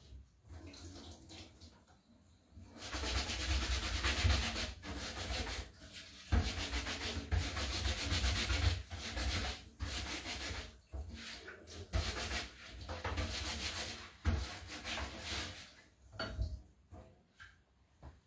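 A wet wipe rubbed hard over a plastic stencil to clean off the paste before it dries, in long rubbing strokes with short pauses, starting about three seconds in and stopping a couple of seconds before the end.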